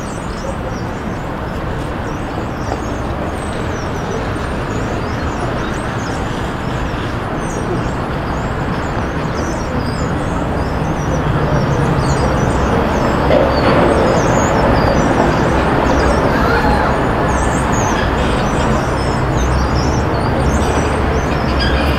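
City street traffic noise: a steady rumble of passing cars and other vehicles, growing louder about halfway through as heavier traffic goes by.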